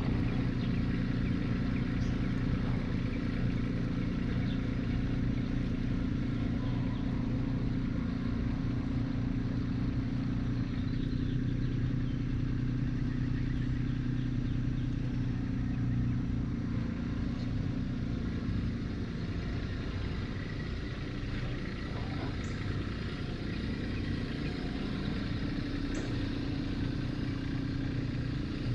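Diesel tractor engine running steadily while the tractor pulls a box blade across a pasture, with some clatter; the engine note eases slightly about two-thirds of the way through.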